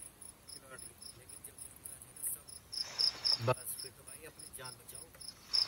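Night insects, crickets, chirping in a steady high-pitched pulse of about three chirps a second. About three seconds in there is a brief rustling rush ending in a soft thump.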